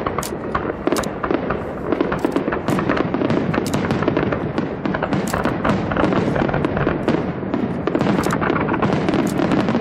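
Fireworks show going off: a dense, rapid crackle of many sharp pops and cracks, several a second, over a steady rumble of bursts.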